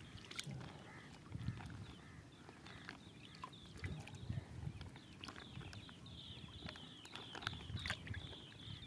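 Pond water sloshing and splashing softly inside a floating plastic bag as a hand stirs it, with scattered light clicks and crinkles. A faint high twittering repeats in the background, strongest in the second half.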